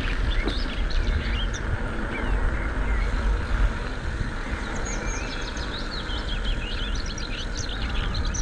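Bicycle tyres rolling along with a steady hiss and low rumble, while small birds chirp many times, most densely in the second half.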